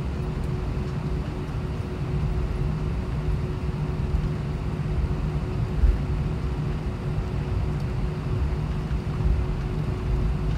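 Airbus A320 cabin noise while taxiing after landing: a steady low rumble from the engines at idle, with a constant faint hum and a single light bump about halfway through.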